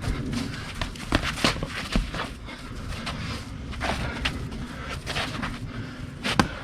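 Sparring in progress: feet shuffling and scuffing with irregular sharp thuds and slaps of strikes, coming at uneven intervals.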